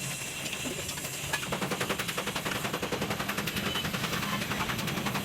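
A workshop power tool running with a fast, even rattle of rapid impacts over a steady low hum.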